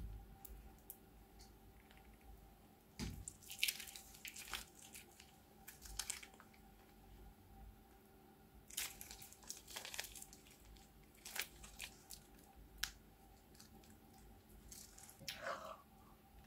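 Clear bead-filled slime squeezed out of a plastic piping bag: quiet sticky crackles and crunchy clicks of the beads, coming in scattered clusters.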